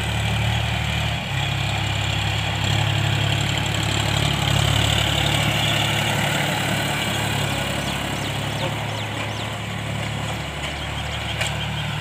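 John Deere 5045 tractor's three-cylinder diesel engine running steadily under load as it pulls a tine cultivator through dry soil.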